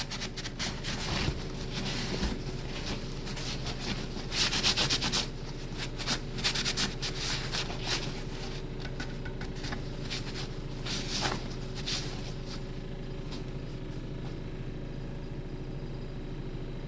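Irregular scrubbing and rubbing strokes as the rusty, dirty bolt area of a toilet tank is cleaned, dying down about two-thirds of the way through. A steady low hum runs underneath.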